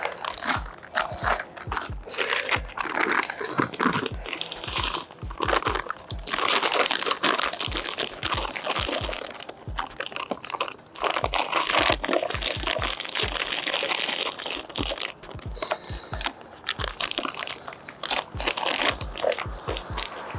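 Dry fishmeal groundbait with coarse pellet pieces crunching and rustling as it is poured and worked by hand in a bucket, in irregular strokes throughout. Background music with a steady low beat plays under it.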